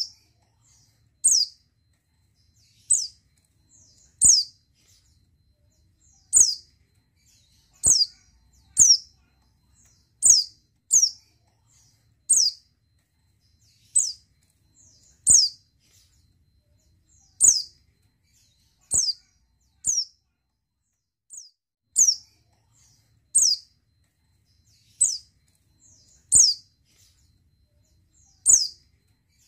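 Female white-eye (pleci) giving short, high, down-slurred calls, some single and some in quick pairs, about one every one to two seconds. The uploader presents them as the calls of a female in breeding condition (birahi).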